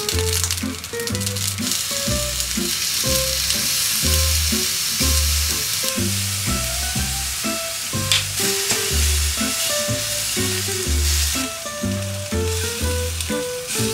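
Zucchini slices and shrimp sizzling in oil in a frying pan, a steady hiss throughout, with background music of bass notes and a light melody underneath. There is one sharp click about eight seconds in.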